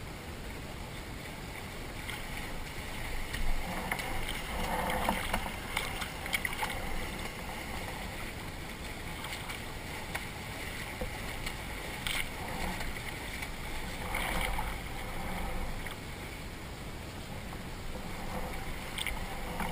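Water lapping and sloshing against the side of a drifting boat close to the microphone, swelling into louder splashes a few times.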